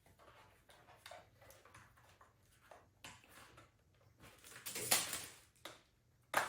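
Plastic welding mask parts being handled and fitted together: scattered light clicks and rustles, a louder scraping rustle about five seconds in, and a sharp click near the end.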